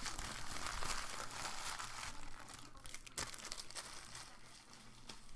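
Trading-card packaging being crinkled and torn open by hand: a crackly, uneven rustle with small clicks, busiest in the first half and thinning out later.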